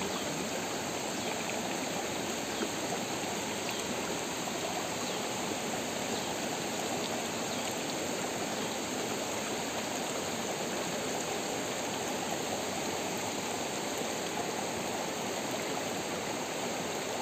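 Steady noise of running water, a small stream flowing without a break.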